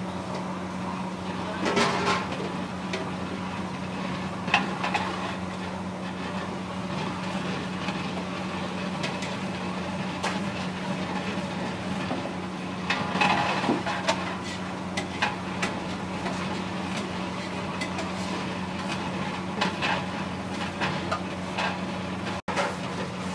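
Long metal ladle stirring in a large aluminium cooking pot of gravy, with scattered scrapes and knocks of metal against the pot, a cluster of them about two seconds in and again near the middle. A steady low hum runs underneath.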